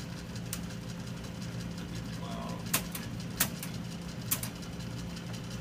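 Addressograph metal-plate embossing machine running: its electric motor and spinning selector arm give a steady hum, with a handful of light, sharp clicks spaced through it.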